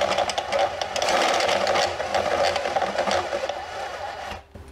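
Cordless drill turning a step drill bit through a sheet-metal panel, cutting the hole out to the next step size: a steady motor whine with the scraping chatter of the bit's cutting edge. It stops shortly before the end.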